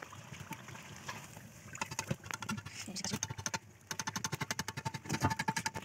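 Masala pitha patties deep-frying in hot oil in an iron wok: a rapid crackle of sizzling oil that grows thick about two seconds in, with a short lull just before the middle of the second half.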